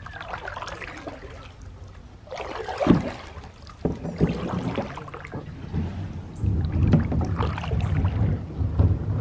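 Canoe paddle with a plastic blade stroking through the water beside the hull, giving irregular splashes and swishes, the loudest about three seconds in. A low rumble joins from about two-thirds of the way through.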